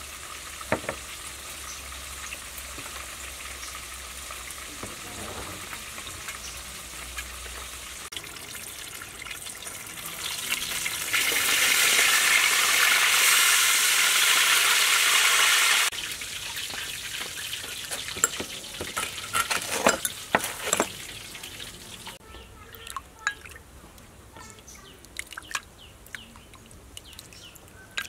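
Whole snakehead fish deep-frying in a wok of hot oil: a steady sizzle that swells much louder for about five seconds in the middle and stops abruptly. Scattered clicks and knocks of utensils follow over a quieter background.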